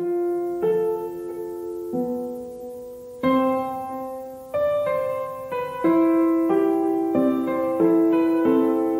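Background piano music: soft chords struck one after another and left to ring and fade.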